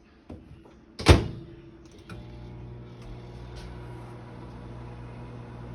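A microwave oven door is shut with a loud knock about a second in, followed by a couple of small clicks, and then the microwave starts and runs with a steady hum.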